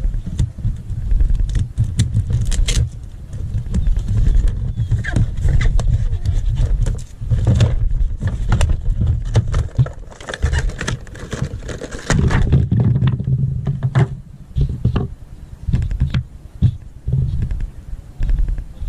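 A GoPro surfboard-mount pack being handled and opened close to the microphone: rustling and crinkling of the card box and plastic, with many sharp clicks and taps. A heavy low rumble lies under it throughout.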